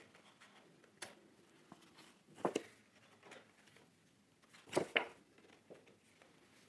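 Card divider sheets being handled and slipped onto the metal rings of a ring-bound planner: a few quiet, short rustles and clicks, the loudest about two and a half seconds in and again near five seconds.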